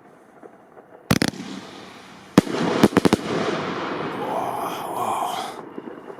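Bonfireworks 'Silver Ice' fireworks firing: a sharp bang about a second in, then a quick string of bangs from about two and a half seconds, followed by a continuous rush of noise that dies away near the end.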